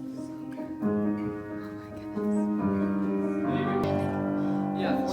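Piano playing a slow run of held chords, each chord ringing on until the next is struck, with a change about every second.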